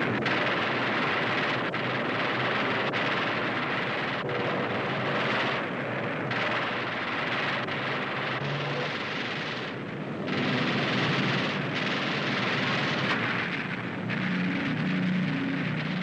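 Air-combat soundtrack: dense, continuous machine-gun fire mixed with aircraft engines, the low drone of the engines coming through more clearly near the end.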